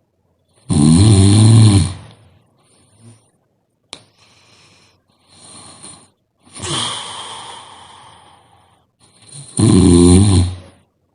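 A sleeping person snoring: two loud, low, rattling snores about a second long, one near the start and one near the end. Between them is a quieter, longer snoring breath, and there is a sharp click about four seconds in.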